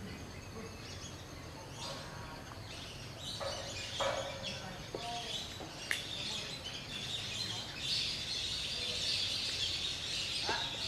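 Outdoor ambience of scattered short bird-like calls and chirps, with a sharp click about six seconds in. A steady high-pitched buzz grows louder in the second half.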